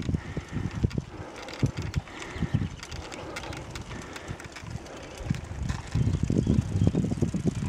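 Rumble and rattling from a camera carried on a bicycle climbing a rough asphalt road: irregular low thumps and sharp clicks over a steady noise, getting heavier about six seconds in.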